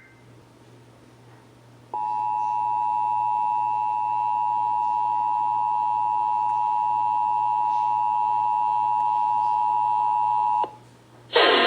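Emergency Alert System two-tone attention signal: the 853 Hz and 960 Hz tones sound together, steady for about nine seconds after a two-second pause, and cut off abruptly. A loud sound starts right at the end.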